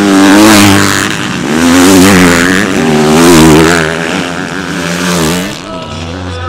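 Motocross motorcycle engines revving hard and backing off through a dirt-track corner, the pitch rising and falling in several surges. The engine noise dies down near the end.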